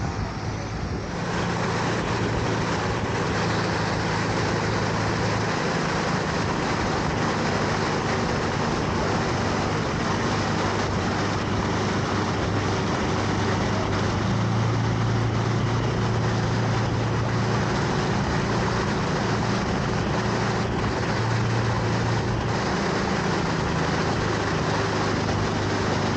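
Motorboat engine running steadily at cruising speed, with the rush of water from the wake along the hull. The sound grows louder about a second in, and the low engine hum wavers a little in pitch.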